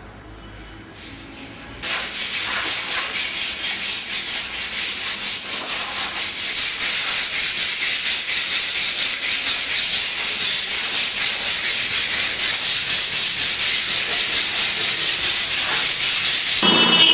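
Sandpaper rubbed by hand against a plastered wall in rapid, even back-and-forth strokes, starting about two seconds in.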